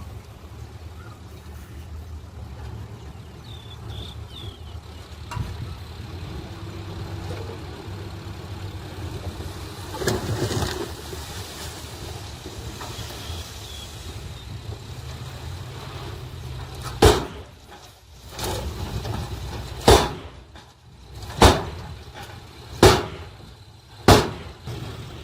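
Heavy diesel engine of earthmoving machinery running steadily, swelling briefly about ten seconds in. About two-thirds of the way through, a series of about six loud bangs follows, roughly one every second and a half.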